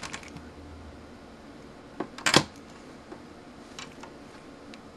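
Alligator-clip test lead clicking against the metal terminal posts of a resistor board as it is moved: a sharp click and a louder clatter about two seconds in, then two faint ticks near the end.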